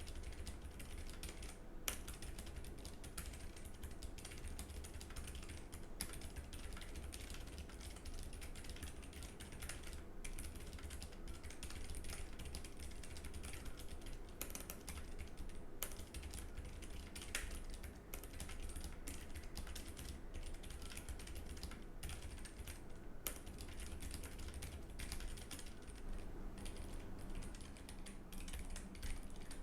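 Continuous typing on a Keychron K3 low-profile mechanical keyboard, a dense run of irregular key clicks. It starts on the brown optical switches; near the end it changes to the red optical switches.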